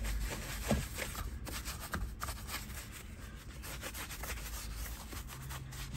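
Soft-bristled detail brush scrubbing a Mercedes-Benz steering wheel wet with sprayed interior cleaner, in quick, repeated back-and-forth strokes: the bristles agitating the cleaner into the surface.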